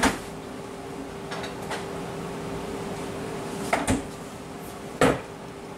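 Refrigerator door being opened and shut while cold water is fetched: a sharp knock at the start, a double knock about four seconds in and another knock about a second later, over a steady low hum.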